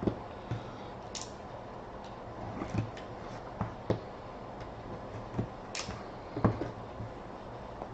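A sealed trading-card box being opened and handled by hand: a scatter of light cardboard knocks and taps, with two brief crinkling rustles.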